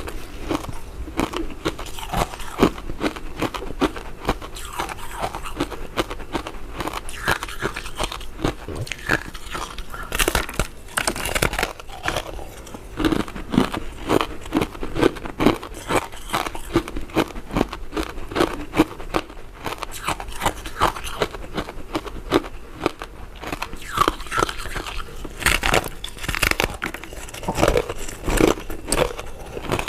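Mouth eating powder-coated mint-flavoured soft candy: a steady stream of small biting and chewing clicks and smacks with no pause.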